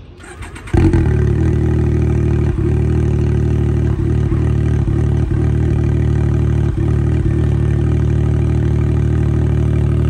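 Winch on a Can-Am side-by-side starting just under a second in and running steadily under heavy load, with a few faint clicks. The line is anchored to a tree that won't give, so the winch is dragging the vehicle toward the tree instead.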